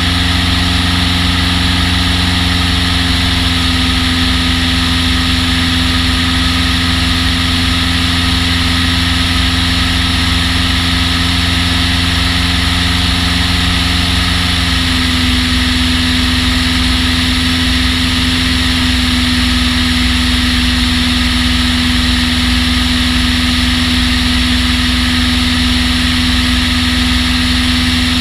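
Long-EZ's piston engine and pusher propeller running steadily, heard from a camera mounted on the aircraft. About halfway through, the engine note shifts slightly upward.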